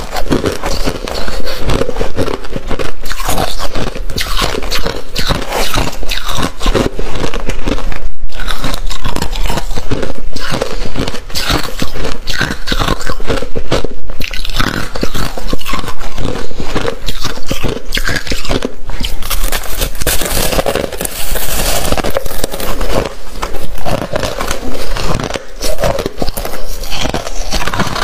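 A person biting and chewing crunchy white freezer-frost ice: a loud, unbroken run of crisp crunches.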